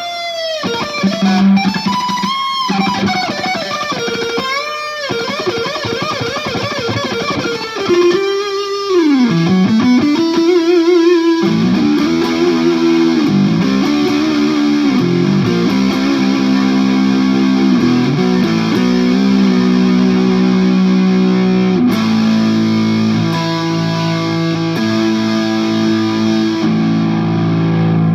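PRS Singlecut electric guitar played through a Marshall JCM2000 amp into a 2x12 cabinet: single-note lead lines with wide pitch swoops up and down, then from about eleven seconds in fuller held chords ringing on.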